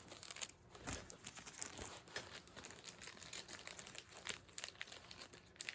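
A thin plastic resealable bag crinkling as a stack of baseball cards is handled and put back into it: a run of small, irregular crackles.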